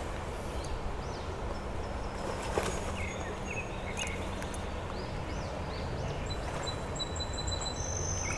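Outdoor ambience: a steady low background hiss with birds calling, a run of short chirps in the middle and thin, high, held whistles near the end.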